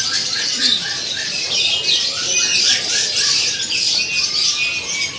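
Many caged songbirds chirping and twittering at once, a dense high chatter, with a run of short, quickly repeated chirps in the first second or so.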